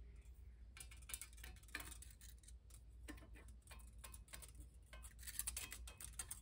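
Faint light metallic ticks and scrapes of a feeler gauge blade being worked under a long steel straight edge on a cast iron cylinder head, checking the head face for warping. The ticks come more often after about five seconds.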